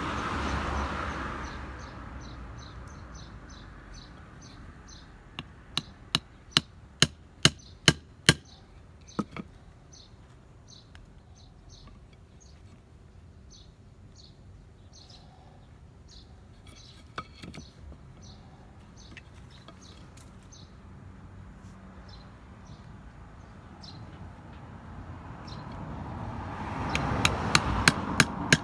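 Small hatchet chopping wood: a run of about eight sharp strikes, roughly two a second, two more a second later, then another quick run of chops near the end.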